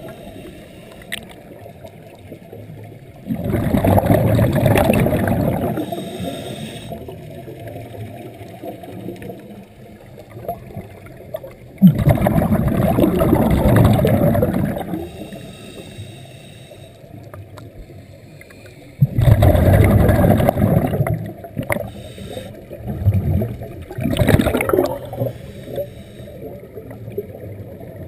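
Scuba diver breathing through a regulator underwater: four loud gurgling rushes of exhaled bubbles, spaced several seconds apart, with quieter pauses for inhaling between them.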